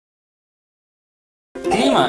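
Complete silence for about a second and a half, then background music cuts in abruptly, with a woman's voice starting just before the end.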